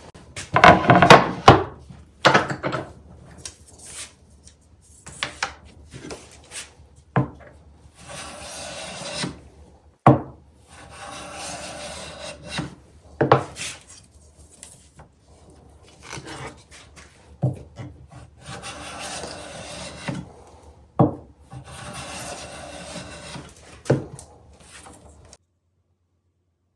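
Hand plane shaving wood in about four long strokes, each a steady hiss lasting a second and a half to two seconds, with sharp wooden knocks between strokes and a loud clatter of knocks at the start.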